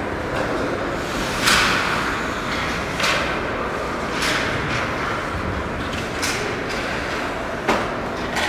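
Ice hockey play on a rink: skates scraping steadily on the ice, broken by five sharp hits and scrapes from sticks, puck and skates. The loudest is a hissing scrape about one and a half seconds in.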